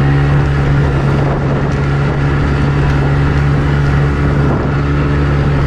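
Outboard motor of a small boat running steadily under way at a constant pitch.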